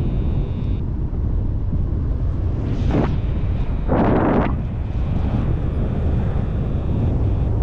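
Wind rushing over the microphone in flight on a paraglider: a steady, loud rush with two stronger gusts about three and four seconds in.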